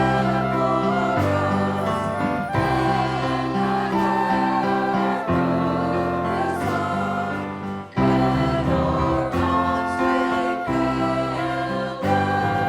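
Group of voices singing with instrumental accompaniment: sustained chords over bass notes that change about once a second, with a brief break about eight seconds in before the music resumes.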